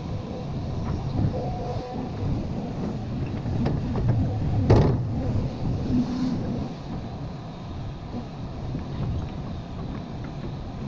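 Caterpillar hydraulic excavator running, its diesel engine and hydraulics working as the bucket shapes a slope, with a single sharp knock about five seconds in.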